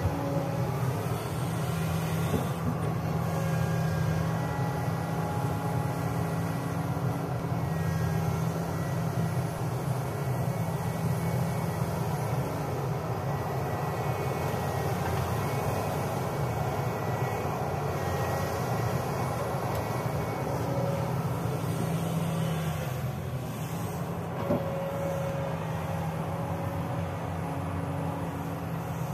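Hydraulic crawler excavator's diesel engine running steadily under load as it digs and swings, with one sharp knock near the end.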